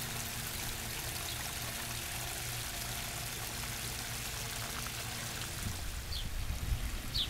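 Small backyard pond waterfall, water splashing and trickling steadily over the rock cascades into the pond. In the last second or so there are some low thuds.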